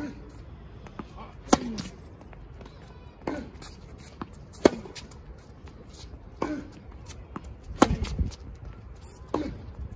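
Tennis rally: a tennis ball struck back and forth with rackets, a sharp pop of racket on ball about every second and a half. Some hits are followed by a short vocal grunt.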